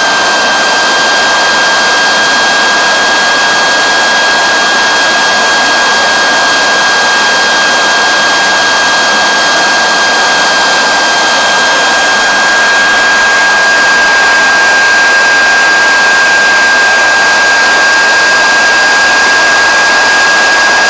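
Home-built miniature turbojet engine running steadily at speed: a loud rushing blast of exhaust with a steady high-pitched turbine whine that holds one pitch throughout.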